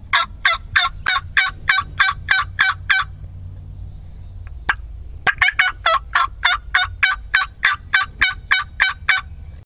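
Hen-turkey clucks made by a person on a turkey call: two quick runs of sharp, evenly spaced notes, about four to five a second, with a pause of about two seconds between them.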